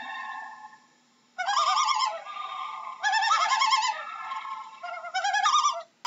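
Common loon giving quavering tremolo calls, a fast wavering laugh. Three bursts, the first starting about a second and a half in, after a call that fades out and a brief pause.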